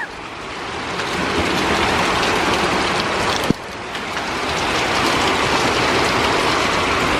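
Rain falling steadily in a dense hiss that swells over several seconds. About halfway through there is a sharp click, the sound drops abruptly, and then it builds back up.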